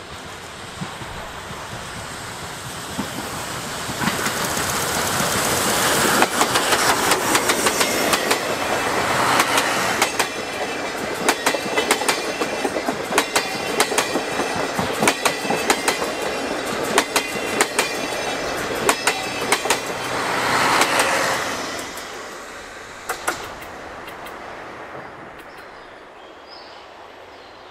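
Train hauled by steam locomotive C57 180 passing close by. The noise builds, then the wheels clack over the rail joints in rapid, sharp clicks for about fifteen seconds. It fades away as the train moves off.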